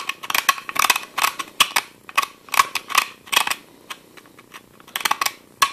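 Knife blade scraping and chipping brittle old glue off a wooden chair tenon: quick, short, scratchy strokes, two or three a second, pausing briefly near the end before a few more.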